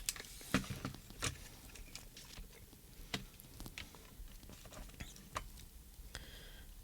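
Scattered small clicks and taps, a few seconds apart, from hands handling the transmitter's small plastic parts and tools.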